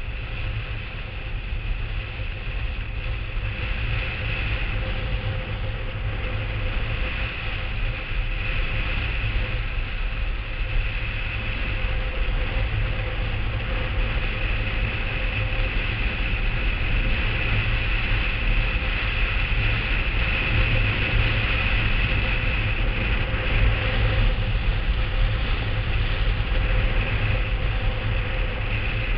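Blokart land yacht rolling at speed over a hard dry-lake surface: a steady rumble of the wheels and wind rushing past the microphone, with a faint thin whine, slowly growing a little louder.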